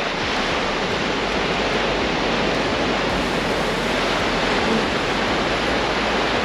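Small waves breaking and washing onto a sandy beach: a steady, even rush of surf.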